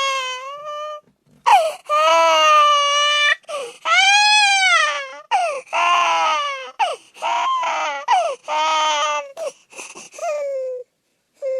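An infant crying hard: a string of loud wails, each a second or two long, some rising and falling in pitch, with short gasping breaks between them and a brief pause near the end.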